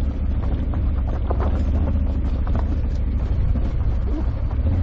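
Honda Africa Twin 1100's parallel-twin engine running steadily as the motorcycle rides down a rocky gravel track, with wind buffeting the microphone and scattered clicks of stones under the tyres.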